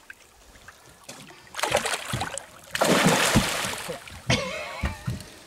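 A hooked northern pike thrashing at the surface beside the boat: a few small splashes, then a loud burst of splashing lasting about a second and a half, starting just before the midpoint.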